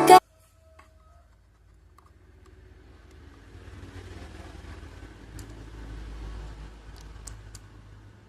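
Background music cuts off right at the start. Then a faint low rumble builds over a few seconds and fades again, with a few light clicks.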